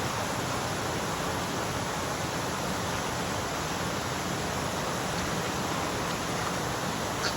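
Mountain stream water rushing, a steady unbroken wash of sound, with one brief click near the end.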